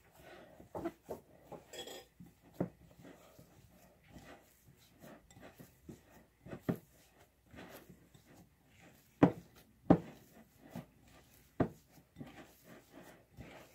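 Hands kneading and mixing cookie dough in a glass mixing bowl: soft squishing with irregular knocks of hand and bowl against the glass. A few louder knocks come about two-thirds of the way through.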